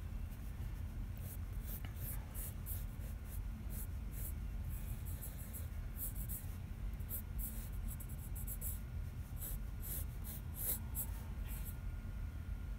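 Mechanical pencil sketching on sketchbook paper: many short strokes one after another, over a low steady background hum.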